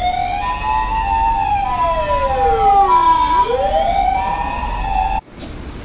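Emergency-vehicle sirens on the street: a two-tone siren alternating between two pitches overlaps a wailing siren that sweeps up and down, over traffic rumble. They cut off abruptly near the end.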